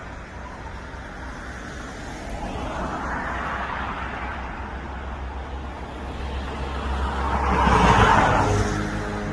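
Road traffic noise: a steady low rumble with vehicles passing, one swelling to the loudest point about eight seconds in and then fading.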